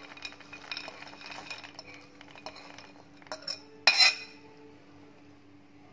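A metal spoon scraping soaked borlotti beans out of a ceramic bowl into a pot of broth: a run of small clicks as the beans slide and drop, then one loud ringing clink of the spoon against the dishes about four seconds in.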